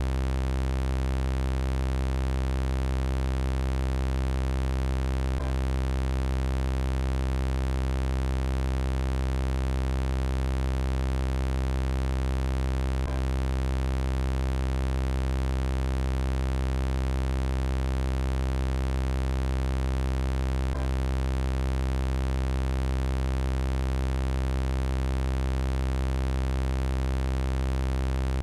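Synthesized robot-voice sound effect: a steady, unvarying electronic buzz held on one low pitch, with a faint click about every eight seconds where the extended loop repeats.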